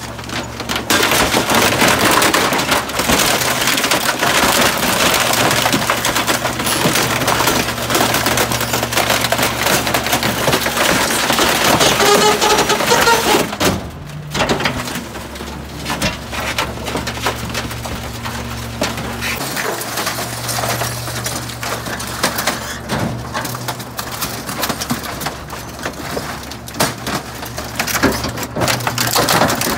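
Garbage truck compactor crushing bulky furniture: wood splintering and cracking over the truck's steady engine hum, with a brief rising squeal about halfway through. The crushing is loudest in the first half and quieter after a short lull.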